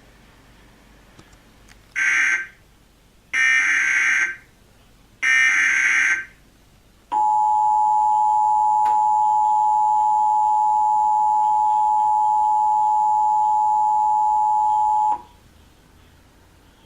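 Emergency Alert System alert tones: three short bursts of SAME header data, each about a second long with a brief gap between, then the two-tone attention signal (853 and 960 Hz together), a steady dual tone held about eight seconds that cuts off sharply. The header encodes the alert and the attention signal announces the start of an EAS activation, here a required monthly test.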